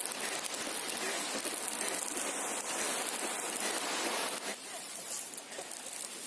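Herbicide sprayer nozzle spraying weed killer onto weeds: a steady hiss with the spray pattering on the leaves, easing off about four and a half seconds in.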